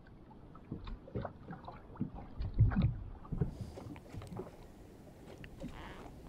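Water sloshing and slapping close against a small boat, with irregular knocks and a louder low thump about two and a half seconds in. It sounds muffled at first, then clearer and quieter after about three and a half seconds.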